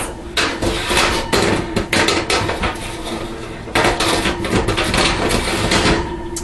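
Metal baking pan clattering and knocking in a kitchen sink, in two spells of rapid knocks: from about half a second in to two and a half seconds, and again from about four to six seconds.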